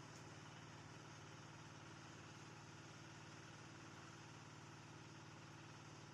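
Faint, steady motor hum with an even low drone that does not change.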